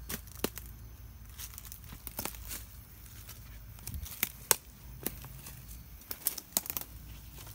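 Footsteps crunching through dry leaf litter and twigs: irregular crackles and snaps, the loudest about four and a half seconds in.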